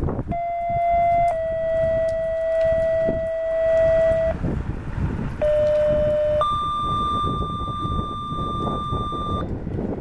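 Two pairs of steady electronic paging tones, each a short tone of about a second followed by a longer one of about three seconds. The first pair steps slightly down in pitch and the second steps up sharply; this is the pattern of a two-tone sequential radio tone-out that triggers a fire siren. Wind rumbles on the microphone underneath.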